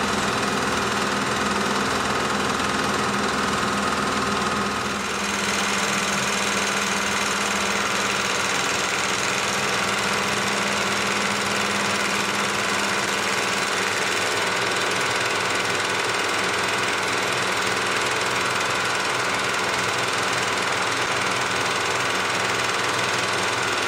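Milling machine running a fly cutter fitted with a left-hand turning tool, cutting across the face of steel flat-bar blanks. A steady machining sound with a brief dip about five seconds in.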